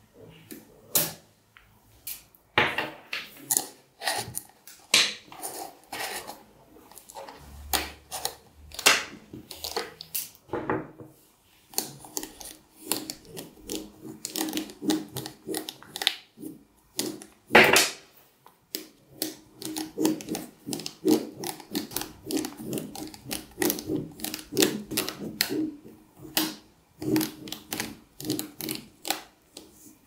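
Small neodymium magnetic balls clicking as they snap together, an irregular stream of sharp clicks. In the second half the clicks come thicker in a rapid rattle as strands of balls are wrapped into rings around a tube.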